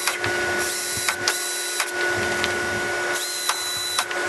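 Cordless drill running a pilot bit through the metal frame of a golf cart's rear seat: a steady motor whine broken by a few sharp clicks.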